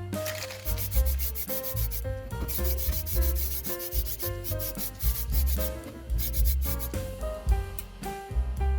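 Sandpaper rubbing back and forth in quick strokes on a part of a scale model car, with a short break about two seconds in. Background music with a steady beat plays underneath.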